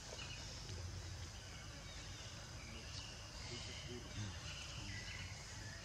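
Quiet outdoor woodland ambience: insects trilling steadily over a low background hum.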